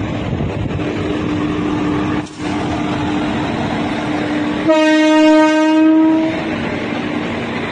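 Indian Railways locomotive passing slowly with a steady drone, sounding its horn once for about a second and a half about five seconds in.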